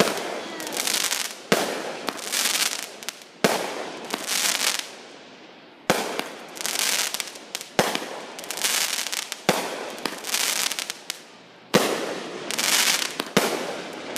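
Consumer fireworks cake firing aerial shots one after another: about eight sharp reports, roughly every two seconds, each trailed by a fading hiss as the stars burst and burn out.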